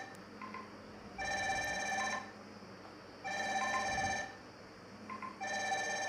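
Fire-Boltt Ninja Bell smartwatch ringing with its loud incoming-call ringtone, a ringtone whose volume cannot be turned down: an electronic ring about a second long repeats roughly every two seconds, three times, with short blips between.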